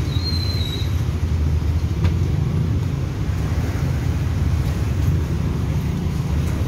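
Busy road traffic: a steady low rumble of cars, a city bus and motorcycles passing close by. A short high-pitched tone sounds briefly in the first second.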